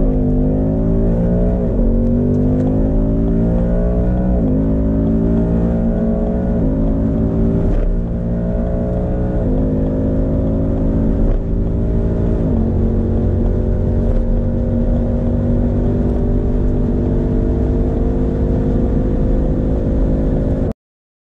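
V8 muscle car engine at full throttle under hard acceleration. The revs climb steadily and drop sharply at each upshift, about five shifts, with each gear held longer as speed builds. The sound cuts off suddenly near the end.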